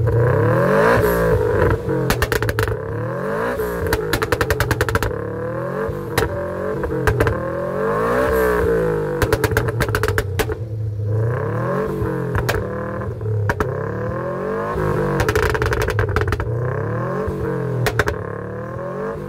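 Subaru Impreza WRX STI's turbocharged flat-four revved through a straight-through exhaust in repeated short blips, each rising then falling. Rapid pops and crackles come from the exhaust as the revs drop.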